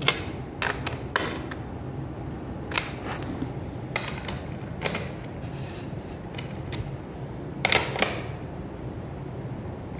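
Irregular light clicks and knocks as the wing chair's bolted rear-leg fittings are handled and checked, with a small cluster of clicks about eight seconds in.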